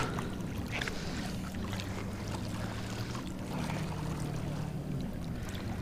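Steady low hum of a distant motorboat engine running out on the lake, with a few faint ticks of handling close by.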